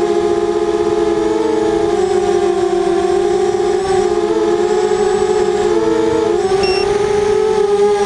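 RD270 FPV quadcopter's four T-Motor 2000Kv brushless motors spinning 5045 bullnose props, heard close up from the GoPro on the frame: a loud, steady whine whose several pitches drift apart and merge again as the motors change speed. A short high beep sounds near the end.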